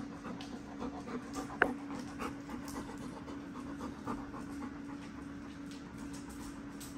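Dog panting in quick, even breaths, with one short sharp squeak about one and a half seconds in and a steady low hum underneath.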